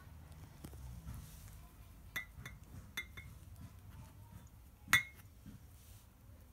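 Glass Coca-Cola bottles clinking as a hand handles them: a few light, short clinks with a brief ring, the loudest about five seconds in.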